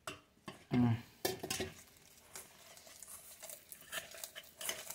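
A hand mixing thick urad dal batter for medu vada in a stainless steel pot: soft wet stirring with light irregular knocks and scrapes against the metal.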